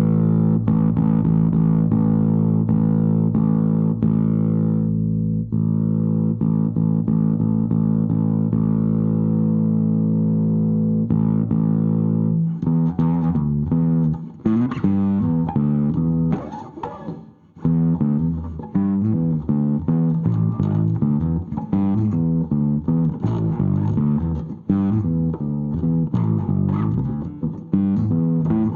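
Bass guitar played through a Jeds Peds Wasteman, a Tube Screamer-style overdrive pedal with a clean blend. A held note rings for about twelve seconds, then a riff of quick changing notes follows, with a brief gap partway through.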